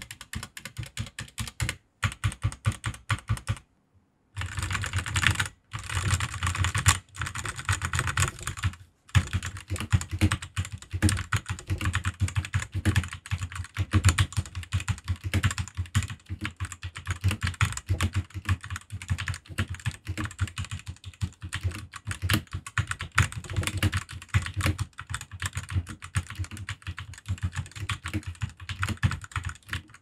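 Typing on a Koodo Gecko X 60% mechanical keyboard with Autumn Red linear switches: a fast, steady patter of keystrokes, with brief pauses about four and nine seconds in. Out of the box, with no plate or case foam, it sounds hollow and pinging, and its stabilizers rattle.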